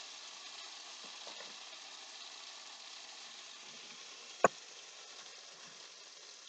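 Hot cooking oil sizzling steadily in a frying pan, with one sharp knock about four and a half seconds in.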